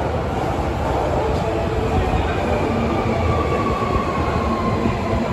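Osaka Metro Sakaisuji Line train coming into the underground station, a steady rumble of wheels on the rails. A faint whine drifts slightly lower in pitch around the middle.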